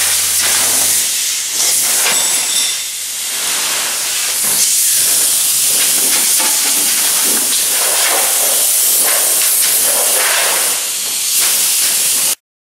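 Steady, loud hiss of paint spraying, with a few brief dips in level; it cuts off abruptly near the end.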